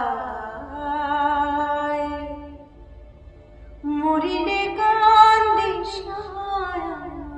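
A woman singing solo in long held, sliding notes: one phrase that fades after about two and a half seconds, a short pause, then a second, louder phrase from about four seconds in that tails off near the end.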